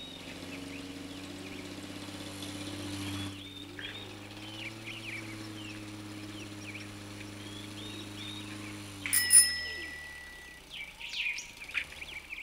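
Small birds chirping and twittering throughout, over a steady low hum that fades away about eight or nine seconds in. A single short bell-like ring about nine seconds in is the loudest moment.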